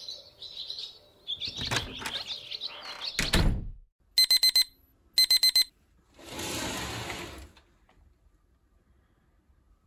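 Electronic alarm beeping in two quick bursts of four high beeps, a second apart. A swish follows, like a curtain being drawn open. Before the beeps come a few chirps and knocks, ending in a loud thump.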